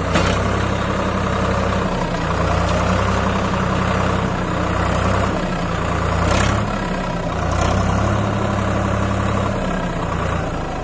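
Swaraj 744 FE tractor's three-cylinder diesel engine running steadily under load while its hydraulics raise a loaded tipping trolley to dump soil. A couple of brief knocks come near the start and about six seconds in.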